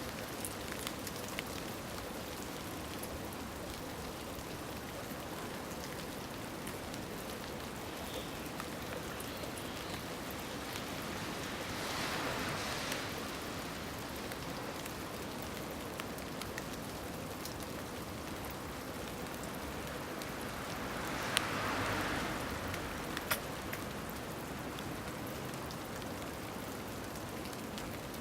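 Water pouring from a bamboo spout into a stone tsukubai basin, a steady splashing trickle. It swells louder twice, about a third and three quarters of the way through, with a few faint ticks.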